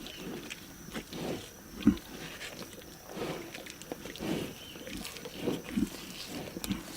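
Lions feeding on a zebra carcass, growling low in short repeated bouts, with one sharp loud burst just under two seconds in.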